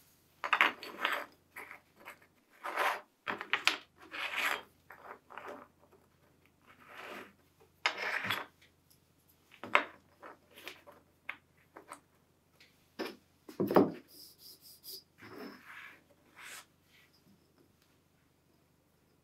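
Hand-working small pocket-knife parts on a wooden workbench: irregular scraping and rubbing strokes of a small metal tool against metal and wood, with a few light metallic clinks.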